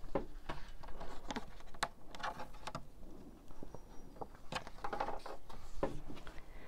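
Irregular rustles and light taps of a large sheet of 140-lb cotton watercolor paper being lifted at one edge and laid back down on a glass tabletop.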